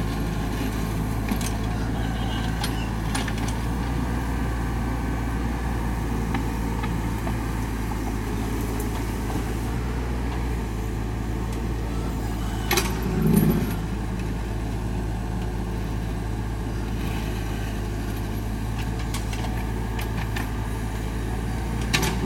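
Mini excavator's diesel engine running steadily, with scattered clicks and knocks as the bucket pries at hard laterite soil, and a louder thump about 13 seconds in.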